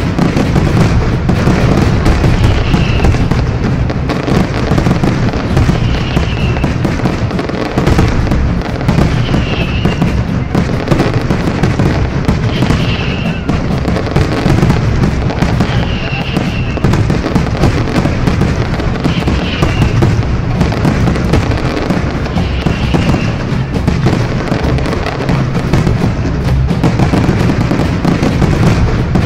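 Loud background music with a dense crackling noise throughout and a short high figure that repeats about every three seconds.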